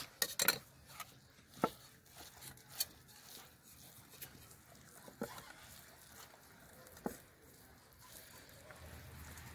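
Hands scooping masala paste off a steel plate and rubbing it into a whole raw chicken: a handful of sharp clicks and taps on the plate, a second or so apart, over a low background.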